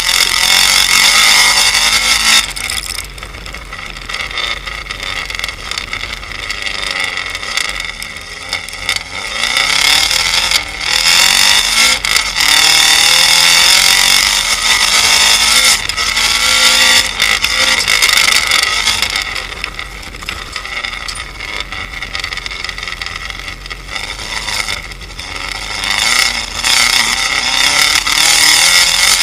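Turbocharged flat-four engine of a Subaru WRX rallycross car, tuned with a Carberry anti-lag ROM, running hard on dirt and revving up and down, very loud in some stretches and quieter in others as the driver accelerates and lifts. Heard close to the rear of the car.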